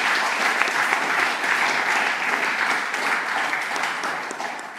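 Audience applauding a winning bid, tapering off near the end.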